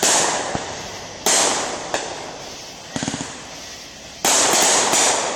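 Fireworks shells bursting overhead: a loud boom at the start and another about a second in, then a quick run of small crackling pops in the middle, and two more booms close together near the end. Each boom trails off in a long rolling echo.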